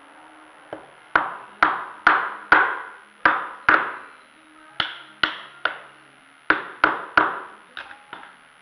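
Steel-handled hammer striking a pine board, knocking a dowelled joint together: about fifteen sharp knocks in three quick runs, each ringing briefly, with two lighter taps near the end.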